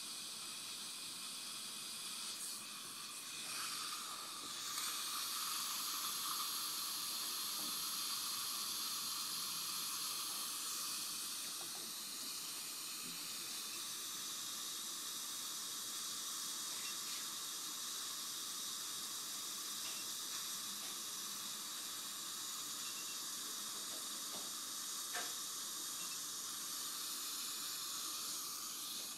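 Dental suction running with a steady airy hiss, a little louder from about five seconds in, with a few faint clicks.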